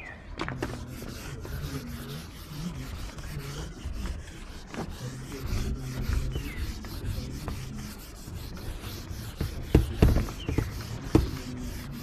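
A duster rubbing back and forth across a whiteboard, wiping off marker writing in quick, scratchy strokes. Two or three sharp knocks come near the end.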